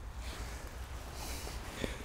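Steady wind rumble on the microphone. From about a second in, waterproof clothing and landing-net mesh rustle as the net with the fish is shifted, with a few faint clicks.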